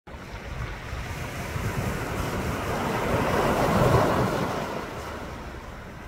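A wave surging onto the beach, building to a peak about four seconds in and then washing back and fading. Wind rumbles on the microphone throughout.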